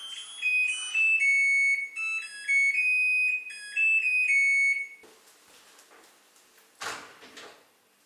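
Electronic beeping tune: a melody of clean steady tones stepping between notes, stopping about five seconds in. A brief soft scuffing noise follows near the end.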